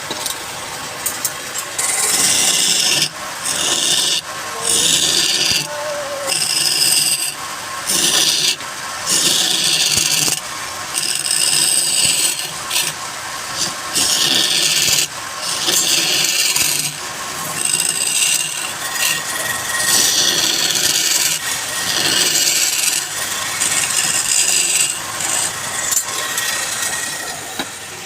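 A tool or abrasive pressed against wood turning on a lathe, in repeated scraping passes of a second or two each with short breaks between, over the steady running of the lathe motor.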